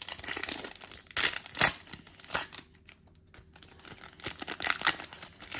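A trading card pack wrapper being torn open and crinkled by hand: crackling rustle with sharp rips, easing off about halfway through, then crinkling again.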